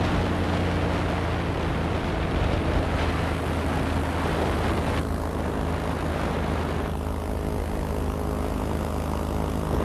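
Airboat engine and air propeller running steadily while under way: an even, low drone.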